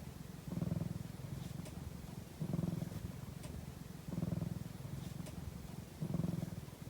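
Domestic cat purring steadily while napping, the low rapid purr swelling louder about every two seconds.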